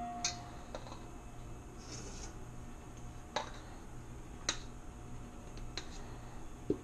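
A handful of light clicks and taps, spaced a second or so apart, as a silicone spatula scrapes sticky bread dough out of a stainless steel stand-mixer bowl tipped over a second metal bowl. A faint low hum runs underneath.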